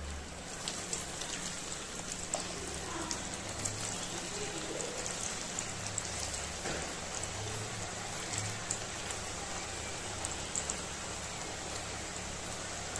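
Raw potato sticks frying in hot oil on their first fry: a dense, steady sizzle with many sharp crackling pops, building about half a second in as more sticks go into the oil.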